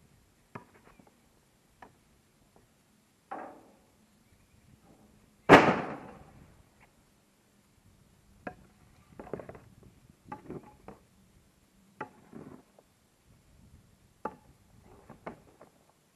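Pieces of firewood knocking and clattering as they are handled and tossed onto a pile. A single loud wooden thunk comes about five seconds in, and clusters of lighter clacks follow through the second half.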